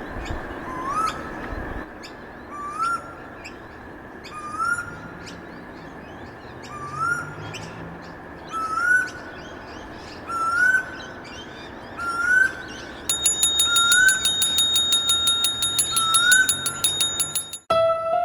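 A bird call sound effect: a short rising whistle repeated about every second and a half to two seconds over a steady hiss. About thirteen seconds in, a rapid high ticking with steady ringing tones joins it, and both cut off suddenly near the end.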